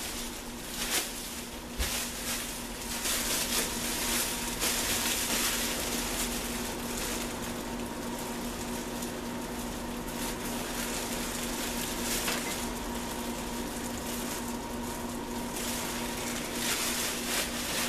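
Crumpled plastic sheet crinkling and crackling as it is pressed and worked against wet spray paint on a canvas, lifting paint into texture.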